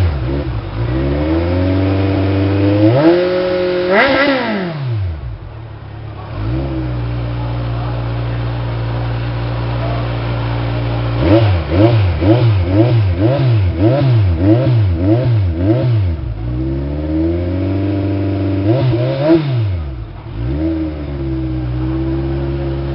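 Kawasaki Z1000 inline-four engine breathing through a Hurricane aftermarket sport exhaust, idling and being revved. One rev comes a few seconds in, then a quick run of about eight short throttle blips, then a longer rev near the end that drops back to a steady idle.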